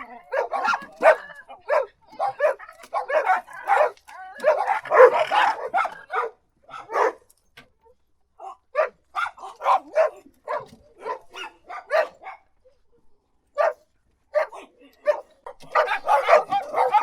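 Dog barking repeatedly: quick runs of short, sharp barks with brief pauses between the runs.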